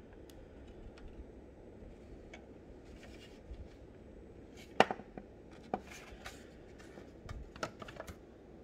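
Light taps, clicks and rustles of a cardboard window box and its plastic display base being handled. One sharper click comes about five seconds in, and a few more clicks and rustles follow near the end.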